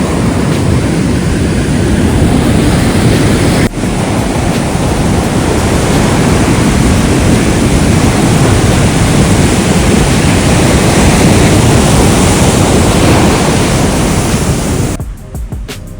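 Sea surf breaking and washing on a beach, a loud steady rush with wind buffeting the microphone. It cuts off abruptly about a second before the end, giving way to music.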